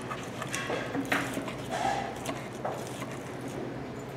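A metal spoon cutting into a roasted tambaqui fish, knocking and scraping on the serving dish with a few sharp clicks.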